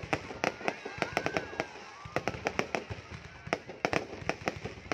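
Fireworks going off in a rapid, irregular run of sharp bangs and cracks, several a second.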